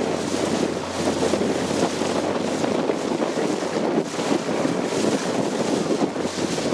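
A motorboat under way: the engine drones steadily beneath wind buffeting the microphone and the rush of water past the hull.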